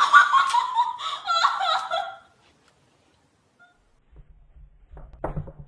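A man laughing in short bursts for about two seconds, then quiet with a faint low rumble near the end.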